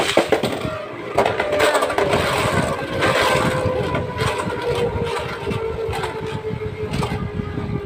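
Two Beyblade spinning tops whirring in a plastic Beyblade stadium, with a sharp clack at the start and repeated clacks as they collide. The steady whir slowly falls in pitch as they lose spin.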